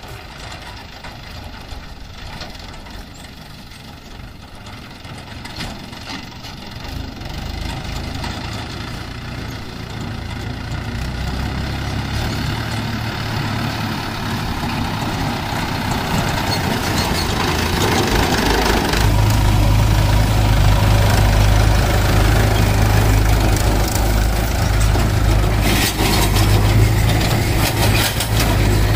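Mahindra 575 DI tractor's four-cylinder diesel engine running steadily as it pulls a trailer, growing louder as it approaches and draws close, with a strong low drone from about two-thirds of the way in.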